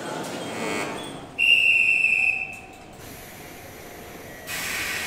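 A single long whistle blast lasting about a second, clear and high-pitched. Near the end a hiss of air starts suddenly from the train at the platform.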